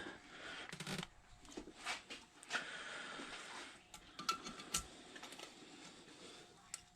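Scattered light clicks and taps of hand tools on a K20 cylinder head during valve spring work, irregularly spaced, with a brief faint hiss near the middle.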